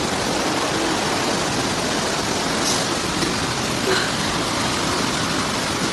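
Flash-flood water rushing steadily, the constant noise of an overflowing torrent.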